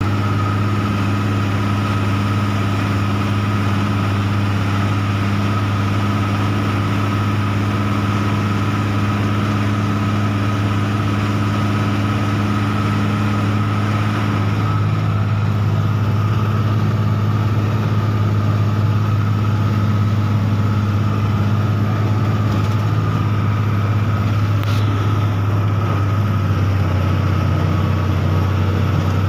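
A vehicle's engine running steadily while driving along a road, heard from inside the vehicle as a constant low drone with a fainter steady whine above it.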